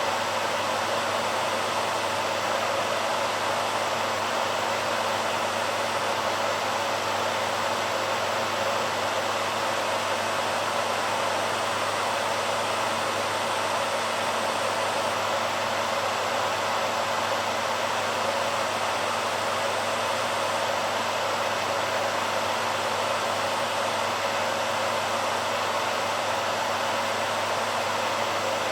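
BaByliss hairdryer running steadily: an even, unchanging rush of blown air with a faint low hum from the motor underneath.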